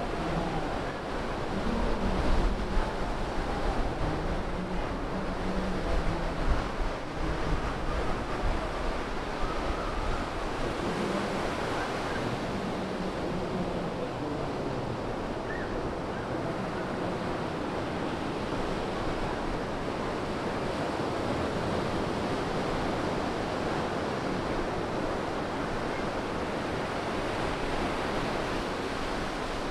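Ocean surf under a pier: waves breaking and washing up the sand around the pilings in a steady rush of water. Wind buffets the microphone in low rumbling gusts during roughly the first eight seconds.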